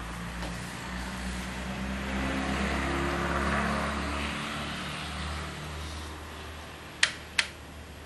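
A low hum and rushing noise that swells to a peak about halfway through and then fades, as of a vehicle driving past. Two sharp clicks, close together, about a second before the end.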